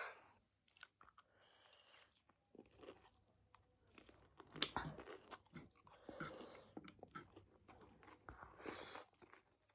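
Faint close-up chewing of a big mouthful of Chapagetti black-bean noodles: scattered small wet clicks and smacks, a little louder about halfway through and near the end.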